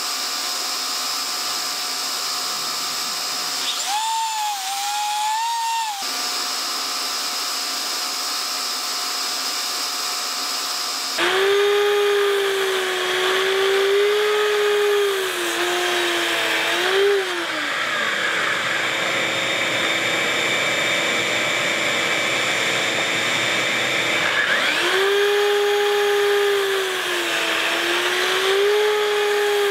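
Festool Kapex sliding miter saw crosscutting a board: the motor whines up at full speed and its pitch sags as the blade bites into the wood, once a third of the way in and again near the end, with a short whine about four seconds in. A dust extractor hums steadily underneath.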